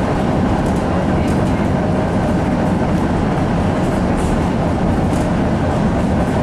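Tram running along its track, heard from inside the passenger car: a steady rumble of the running gear and wheels on the rails.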